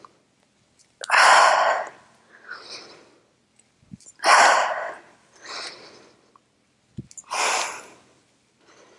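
A woman's forceful breaths out, three strong exhalations about three seconds apart, each followed by a shorter, quieter breath in, timed to the reps of a dumbbell squat-to-press. Brief low knocks come just before the second and third exhalations.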